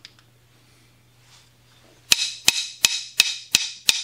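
A brand-new A36 vitrified grinding wheel, hung on a rod, is tapped six times with a drumstick in a ring test, starting about two seconds in at about three taps a second. Each tap dies away quickly with no clear bell-like ring: the wheel fails the ring test, which marks it as untrustworthy.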